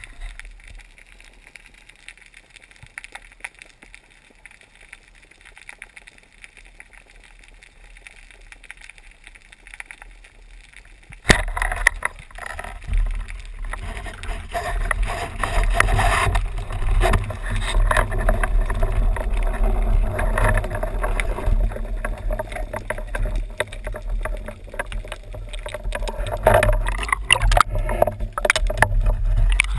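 Band-powered speargun fired underwater: a sharp crack about eleven seconds in, after a stretch of faint water hiss. It is followed by loud, continuous water rush and deep rumble with many rattling clicks of the gun and line while the speared fish pulls.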